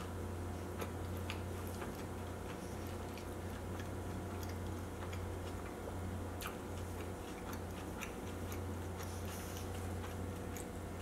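Close-miked chewing of a chewy chapati wrap: irregular soft wet mouth clicks and smacks, over a steady low hum.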